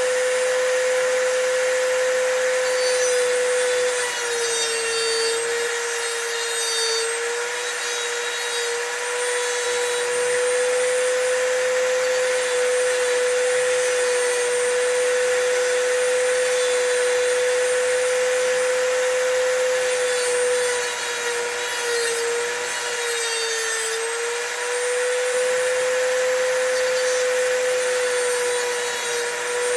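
Dremel rotary tool with a cutoff wheel cutting the bitting into a key blank: a steady high whine over a grinding hiss. The pitch sags briefly twice, about four seconds in and again past twenty seconds.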